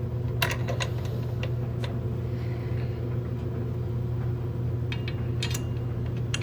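Steady low mechanical hum of running equipment, with a few light metallic clicks as the bolts and nuts on a circulator pump's brass flange are handled.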